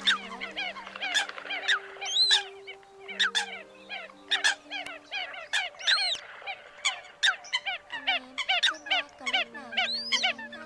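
A flock of Eurasian coots calling: many short, sharp call notes overlapping in quick succession, with several louder high calls standing out and a few held low tones underneath.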